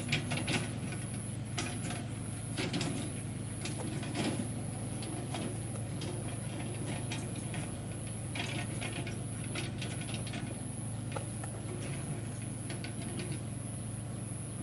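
Kubota tractor's engine running steadily under load as it drives a rice-field channel-cutting machine through the paddy, with irregular clicks and rattles from the working machine and the mud it throws.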